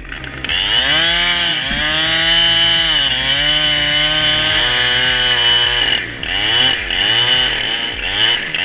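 Chainsaw engine running at high revs, its pitch sagging and climbing again as the chain works through the wood, with short drops in level twice near the end.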